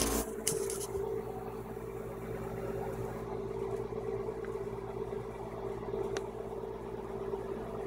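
A steady machine hum with a held low tone. There is a brief rustle near the start and a single sharp click about six seconds in.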